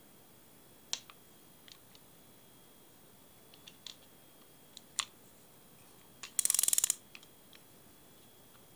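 Intrepid Super Twin fixed spool spinning reel being worked by hand: scattered single clicks and taps of its parts, then a half-second burst of rapid ratchet clicking, the loudest sound, about two thirds of the way through.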